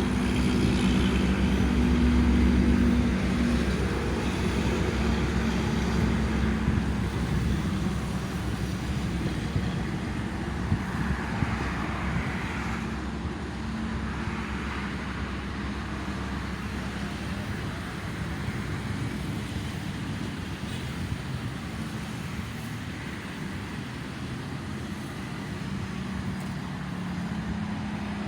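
Steady toll-road traffic noise, with the engine of a heavy vehicle loudest in the first few seconds and then fading into the general rumble.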